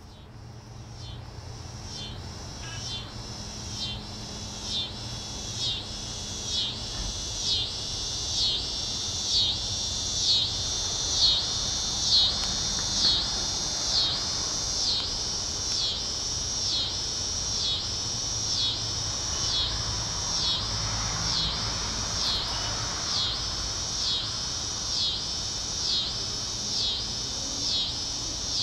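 Scissor-grinder cicada (Tibicen pruinosus) singing: a high, rasping buzz that pulses about once a second. It grows louder over the first ten seconds or so, then holds steady over a faint low hum.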